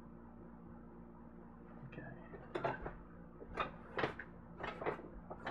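A metal-framed chair pulled up and sat in: after a quiet start, a run of short knocks and clicks from about two seconds in, six or seven of them in all.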